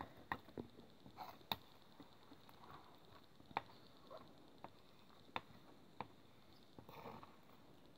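Faint, scattered clicks and soft scrapes of a metal palette knife on a sheet of glass while thick texture paste is mixed, a few sharp taps standing out at uneven intervals.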